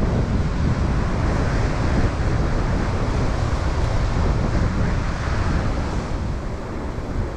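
Wind buffeting the microphone: a steady, loud rush of noise, heaviest in the low end, easing slightly near the end.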